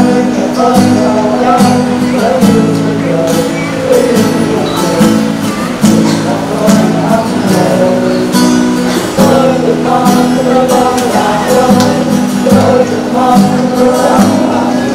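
Music with a strummed acoustic guitar: sustained chords change about every two seconds under a moving melody line.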